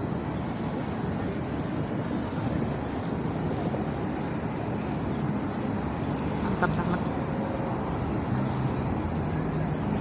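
Steady low rumble of outdoor city background noise, such as distant traffic, with wind on the microphone.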